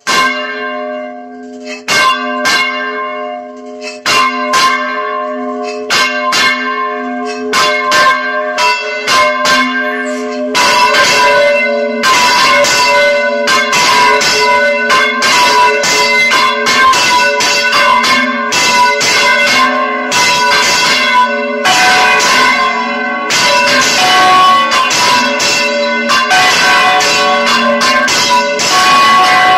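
Church bells rung in full-circle swing (volteo): the bronze bells turn right over on counterweighted headstocks. Single strokes ring out at first, then from about ten seconds in several bells ring together in a dense, continuous peal.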